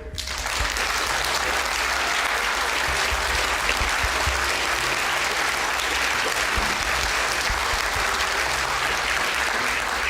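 Audience applauding steadily and evenly.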